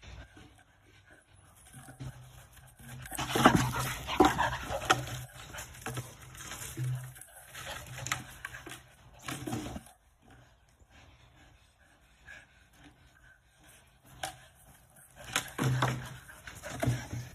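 A dog panting while it shoves and carries a plastic bucket, the bucket knocking and scraping on the ground in bursts. The clatter comes from about three seconds in until about ten seconds in, then again near the end.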